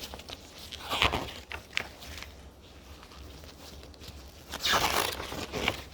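Rustling and handling noises from items being moved about, with a louder rustle about a second in and a longer one near the end.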